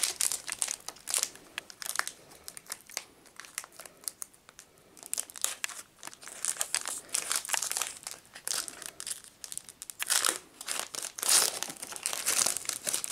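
Foil wrapper of a Pokémon TCG booster pack crinkling in the hands as it is worked open, in irregular bursts with a quieter lull about four seconds in.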